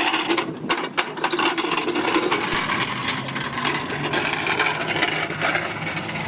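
A race car pushed by hand over wheel ramps: a few knocks, then steady scraping and rubbing as its tyres roll over the ramps and the gritty tarmac.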